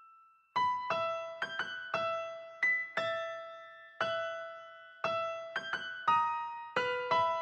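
Solo piano music: a slow melody of single struck notes that ring and fade. It starts about half a second in, after a brief pause.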